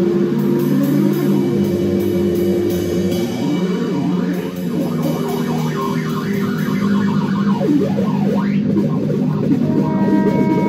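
Improvised noise jam: an electric bass guitar holds droning notes, with warbling, sliding pitches in the middle. A trombone note comes in near the end.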